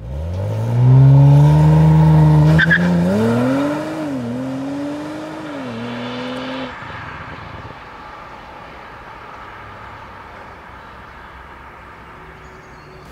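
Audi RS4 Avant's 2.9-litre twin-turbo V6 accelerating hard. The engine note climbs, drops briefly twice in pitch like quick upshifts, and dies away about halfway through, leaving a quieter steady rumble.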